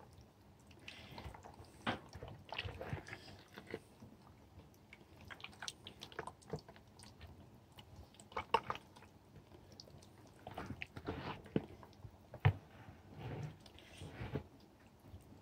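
Hands rubbing a wet masala paste over a raw whole chicken and working it in under the skin: irregular soft squelches and short sticky clicks.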